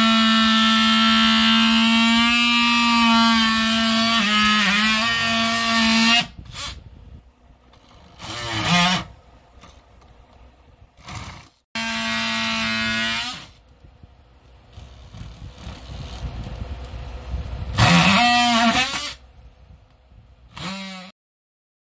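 DeWalt Atomic cordless oscillating multi-tool running with a steady high buzz, its pitch bending as the blade bites into the plywood subfloor to widen the toilet-flange opening. It is then stopped and triggered again in several short bursts.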